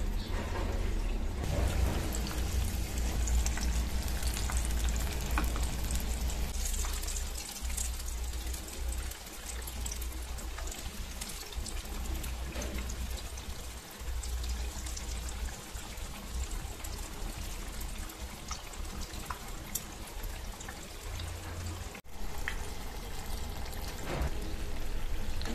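Battered brinjal pieces deep-frying in hot oil in a wok: a steady sizzle with many fine crackles, which briefly cuts out near the end.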